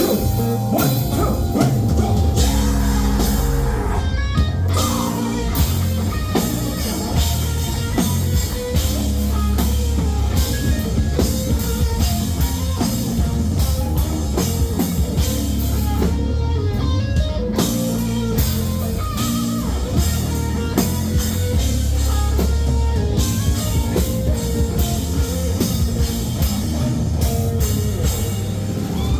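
Live rock band playing: drum kit and guitars over a strong, steady bass.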